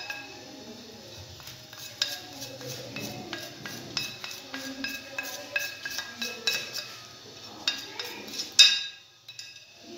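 Metal kitchenware clinking and tapping: a utensil and a perforated lid knock against a metal pan of tamarind water and spices as it is stirred. The short ringing clinks come about two or three a second, with one louder clatter near the end.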